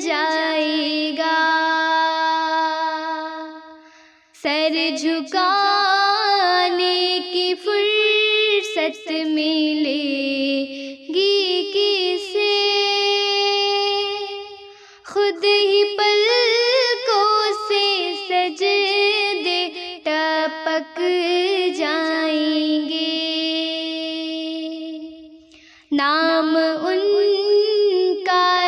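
A young girl singing a naat (an Urdu devotional song praising the Prophet) in a solo voice, with long held, ornamented notes. She breaks off briefly between phrases about four, fifteen and twenty-six seconds in.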